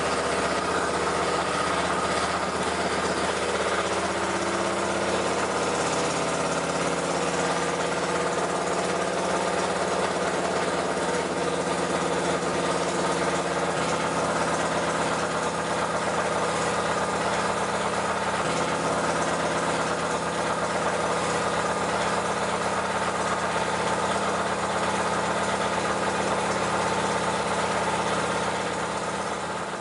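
Hand-built model stationary steam engine with a single oscillating cylinder and gas-fired copper boiler, running steadily with a fast, even mechanical clatter. The sound gets quieter near the end.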